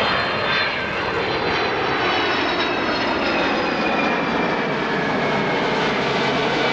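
Boeing KC-767 tanker's twin turbofan jet engines as it flies past banking: a steady loud rush with high whining tones that slowly fall in pitch.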